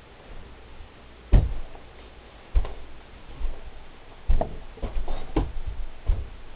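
Footsteps: about six irregular thumps and knocks as someone walks across a small room close to the microphone.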